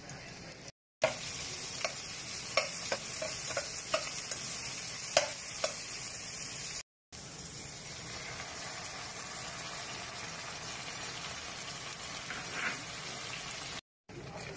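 Onion, garlic and vegetables sizzling in hot oil in a frying pan, with a metal spatula clicking and scraping against the pan as they are stirred during the first few seconds. After that comes steadier sizzling, broken twice by brief silences at edit cuts.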